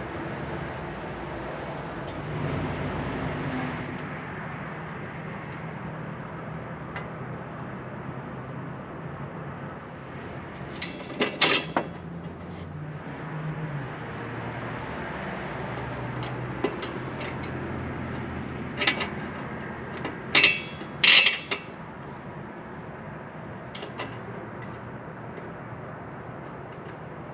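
Metal tools and exhaust parts clanking and clinking a few times, with a pair of clanks about halfway through and three more about two-thirds through, over a steady low hum.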